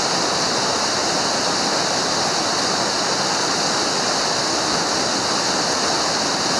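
Steady rush of flowing canyon water, an even hiss that does not change.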